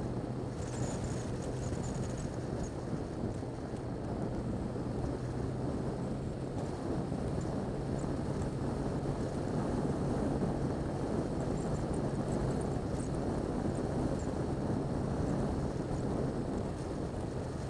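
Yamaha XJ6 Diversion's inline-four engine running steadily while cruising, under a constant rush of wind on a helmet-mounted microphone and tyre noise from the wet road.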